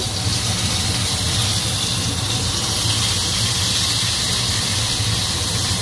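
Ribeye steak sizzling steadily in a smoking-hot frying pan with vegetable oil: the sear starts as the raw meat goes into the pan. A fan hums steadily underneath.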